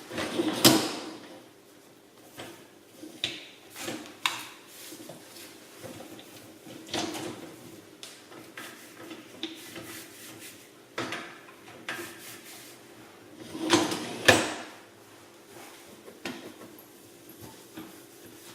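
Irregular knocks, scrapes and short rushing bursts from hands working inside a dishwasher as its interior is sprayed and wiped clean, the loudest about half a second in and again about 14 s in.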